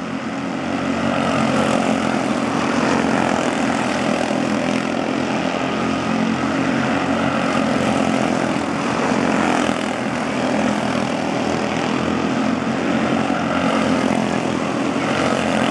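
Several quarter midget race cars with small Honda 160 single-cylinder engines running at racing speed around the track, a steady, dense buzzing drone of overlapping engines.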